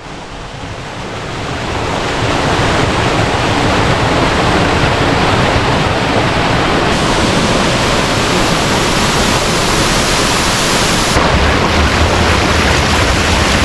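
Waterfall: a steady, loud rush of falling water that fades in over the first couple of seconds. Its tone shifts abruptly twice, about seven and eleven seconds in.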